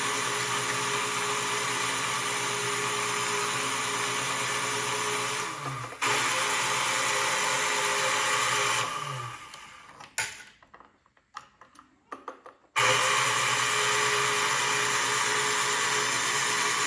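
Electric motor of a postwar Lionel #182 magnetic crane whirring as it is run from the push-button controller to drive the crane. It stops briefly about six seconds in and again about nine seconds in, leaving a quiet gap with a few small clicks, then starts up again abruptly about thirteen seconds in.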